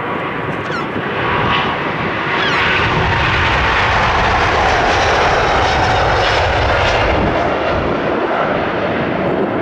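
Rolls-Royce Trent 7000 turbofans of an Airbus A330-900neo at takeoff thrust during the takeoff roll. The noise swells about three seconds in as the airliner speeds past, with a whine that falls in pitch, and the aircraft rotates for liftoff near the end.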